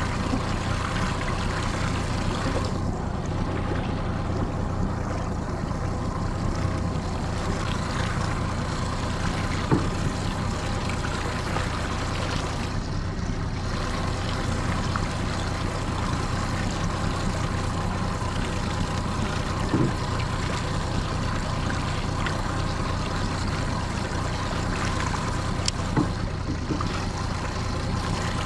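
Outboard motor running steadily at trolling speed, with water washing along the hull. A few light knocks come through, spaced several seconds apart.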